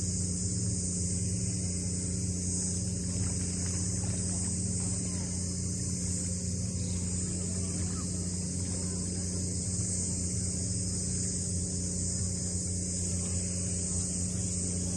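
Steady high chirring of insects in the shoreline scrub, over a steady low hum that holds the same pitch throughout.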